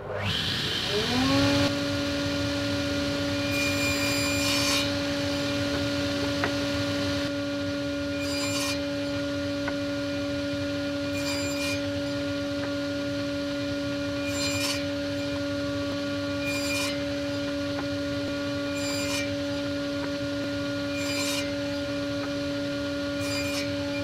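Table saw motor spinning up just after being switched on, then running with a steady whine while a stack of wooden strips is crosscut over and over. There is a brief cutting noise about every two to three seconds, eight cuts in all.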